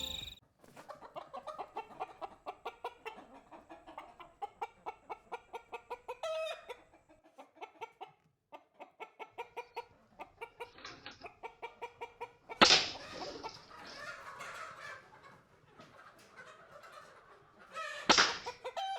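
An animal calling in a long steady series of short pulsed notes, about four a second, broken by two louder sudden sounds, one about two-thirds of the way through and one near the end.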